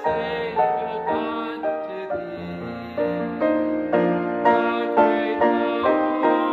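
Piano music, with notes and chords struck at a steady, unhurried pace, about two a second toward the end.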